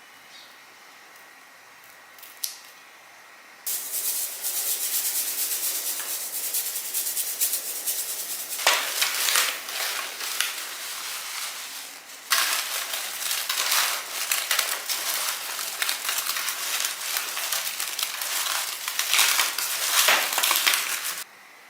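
Baked dough balls rolled in granulated sugar: a dense, gritty crunching and rubbing in two long stretches with a short break between them, cutting off abruptly near the end.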